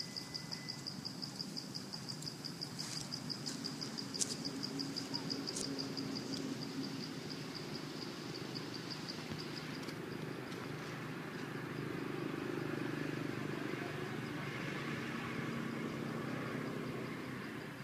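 An insect chirping in a steady high-pitched pulse, about five chirps a second, fading out about ten seconds in. Beneath it runs a low background rumble, and there is a single sharp click about four seconds in.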